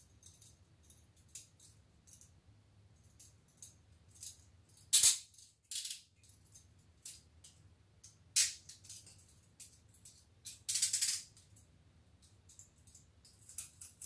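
TCH 822 steel chain-link handcuffs being handled and closed onto the wrists: scattered small clicks and clinks of the chain and cuffs, with louder bursts of metallic rattling and ratcheting about five, eight and eleven seconds in.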